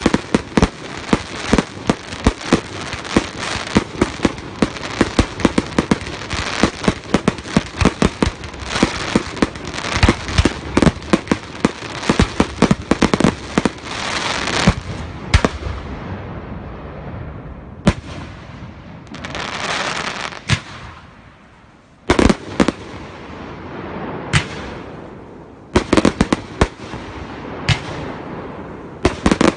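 Aerial firework shells bursting in rapid, overlapping volleys with crackle for about the first fifteen seconds. The bangs then thin out to a swelling hiss and single bursts a second or two apart, with a short lull a little past the two-thirds mark.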